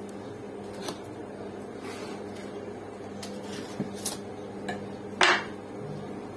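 A steel boning knife clicking lightly against rib bones as it cuts along a breast of ribs, then one louder clack about five seconds in as the knife is set down on the wooden chopping block, over a steady hum.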